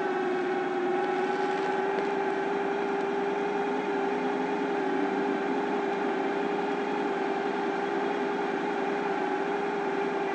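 Honda ST1100 motorcycle's V4 engine idling steadily while the bike is stopped, a constant hum that holds one pitch throughout.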